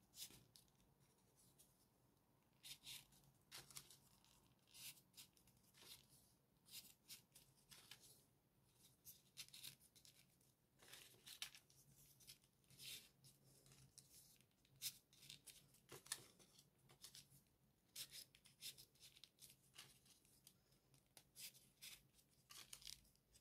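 Faint, crisp rustles and scrapes of small folded paper triangles being slid onto the points of a 3D origami ring of paper modules, in short bursts every second or so.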